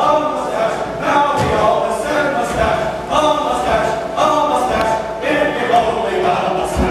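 A group of men singing together as a chorus, with a few low thumps under the singing.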